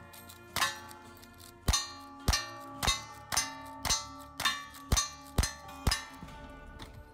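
Ten lever-action rifle shots in quick succession, about two a second, from a Rossi-made Winchester 92 clone, each shot followed by the clang and brief ring of the steel target it hits.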